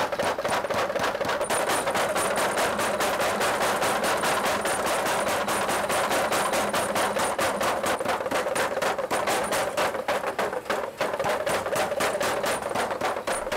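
Blacksmith's mechanical power hammer pounding a red-hot steel bar in rapid, even blows, several a second, with a steady hum underneath, as the hot steel is drawn out.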